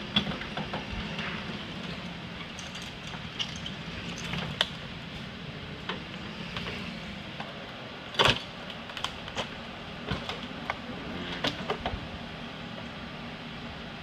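A tow truck's engine runs steadily while its winch cable pulls an overturned car back toward its wheels. Sharp metal clanks and knocks from the rigging and the shifting car body come on top, the loudest about eight seconds in and several more between nine and twelve seconds.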